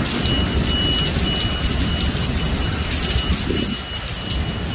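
Heavy rain pouring down onto wet pavement and parked vehicles, a dense steady hiss with a low rumble beneath it.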